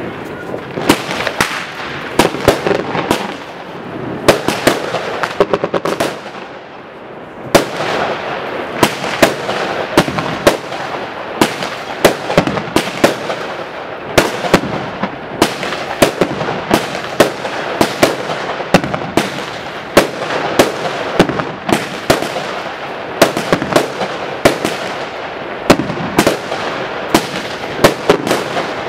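Multi-shot consumer fireworks barrage (Bonfireworks "The Wave") firing: rapid sharp bangs several times a second over a continuous crackling hiss, with a short lull about six seconds in before the shots pick up again.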